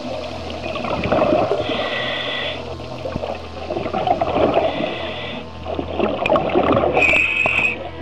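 Scuba breathing heard underwater through a regulator. There are three hissing inhalations, about two, five and seven seconds in, with bubbling, gurgling exhalations between them over a steady low hum.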